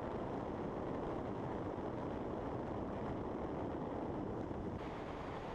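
Steady wind and road noise of a vehicle driving at speed, an even rushing hiss with no distinct engine note.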